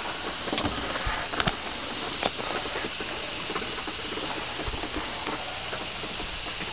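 New York strip steaks sizzling on a gas grill's grate: a steady hiss with scattered pops and crackles, a few of them within the first couple of seconds.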